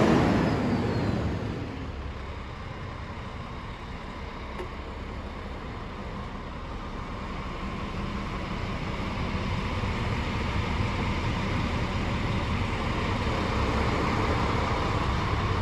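Scania R440's 440 bhp diesel engine idling steadily, heard from inside the cab. In the first two seconds a louder rush with a falling whine dies away into the idle.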